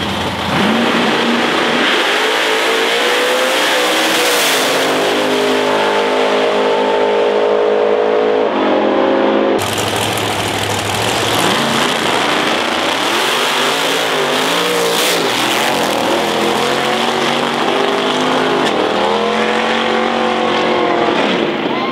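Drag cars' engines revving hard and launching down the strip, their pitch climbing, holding high and dropping as they pull away and shift. About ten seconds in, a cut brings in a second pair of cars launching, their pitch rising and falling in swells.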